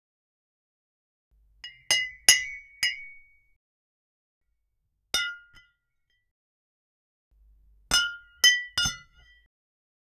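AI-generated (Stable Audio) sound effect of wine glasses clinking together in a toast. There are three or four clinks close together about two seconds in, a single clink around five seconds, and three more near the end, each with a brief glassy ring.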